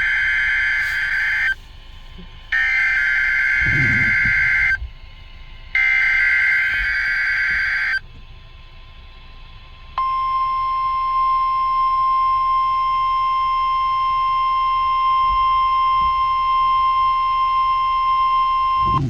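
NOAA Weather Radio weekly test alert received through a Baofeng handheld radio's speaker. Three short bursts of screeching SAME digital header tones are separated by brief pauses. After about two seconds of quiet, the steady 1050 Hz warning alarm tone sounds for about nine seconds.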